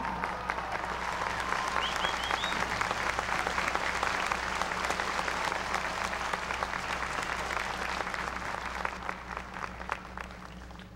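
Large crowd applauding, many hands clapping at once; the applause holds strongly, then dies away near the end.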